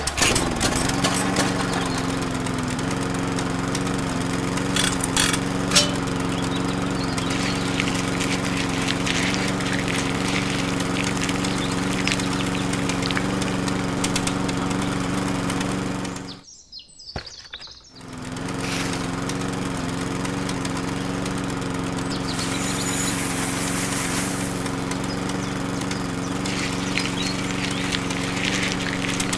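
Small electric motor of a miniature model grain mill running with a steady hum, driving the mill through rubber-band belts as it grinds soybeans into flour, with a few ticks and crackles. It cuts out for about a second and a half about two-thirds of the way through, then runs again.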